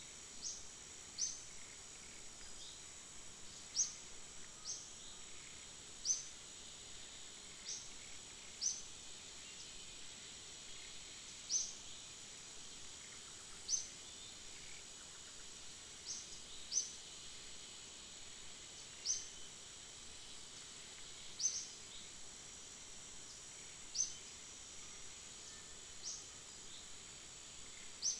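Forest ambience: a steady, high-pitched insect drone, with a bird's short, sharp rising chirps repeated every one to two seconds.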